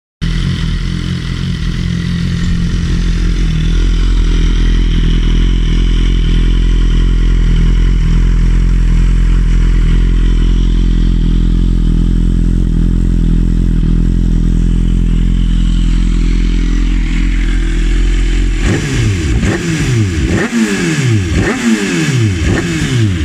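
A BMW S1000RR's inline-four engine idling steadily through a GR GP-style silencer with the dB killer and honeycomb grille removed, then revved in five or six quick throttle blips from about eighteen seconds in, each rising and falling sharply.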